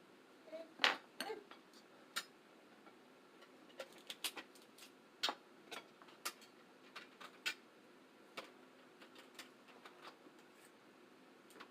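Eating sounds from a seafood boil: scattered sharp clicks and taps, one or two a second, the loudest about a second in.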